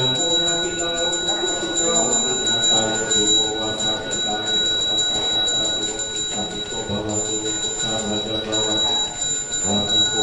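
A small ritual hand bell rung continuously in a fast, steady shimmer, under a man's low chanting of a mantra.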